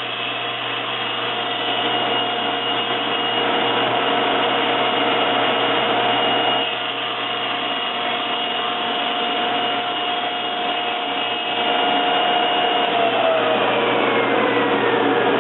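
Table saw running steadily while cutting shallow bevel facets with a jig, then switched off about 13 s in, its pitch falling as the blade spins down.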